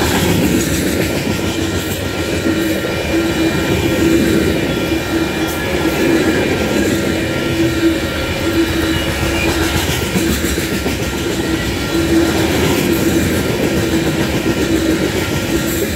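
Covered grain hopper cars of a freight train rolling past close by: a steady rumble and clatter of steel wheels on the rails, swelling and easing as the cars go by.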